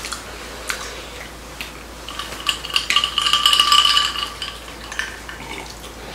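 Tableware clicking and clinking as chopsticks tap bowls and a plastic serving container. About two seconds in comes a louder stretch of fizzy hiss with a steady ringing tone, from a glass of cola, which stops a little after four seconds.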